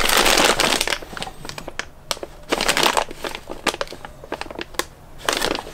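Plastic bags of resin model-kit parts crinkling and rustling as they are handled. The crinkling is loudest in the first second and comes again briefly near the end, with scattered sharp crackles in between.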